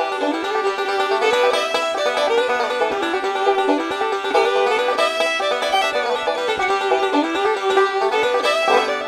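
Background music: a quick, bright plucked-string tune in a bluegrass style.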